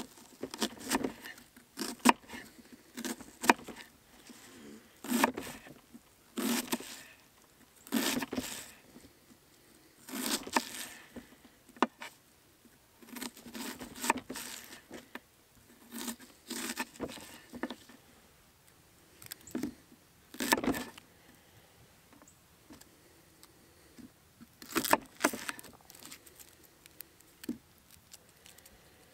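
Chef's knife dicing a white onion on a wooden cutting board: crisp slicing crunches and knocks of the blade on the board, coming in quick clusters every second or two.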